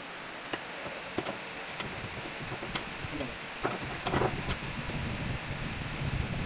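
Scattered light clicks and knocks of a car driveshaft and its CV joint being handled at a bench vise. From about three and a half seconds in there is denser, low rubbing and knocking handling noise.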